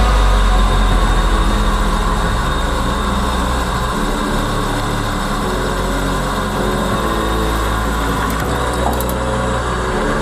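Angle grinder's electric motor running steadily, with a dense, even whirr.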